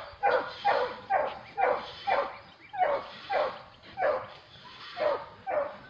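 A beagle barking over and over, about two short barks a second, each bark falling in pitch.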